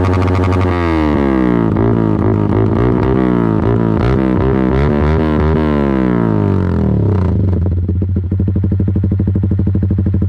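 Yamaha R15 V3's single-cylinder engine revved through an aftermarket exhaust: the throttle is blipped repeatedly, the pitch rising and falling about once a second, then it settles back to a steady idle for the last few seconds. The exhaust note is bass-heavy.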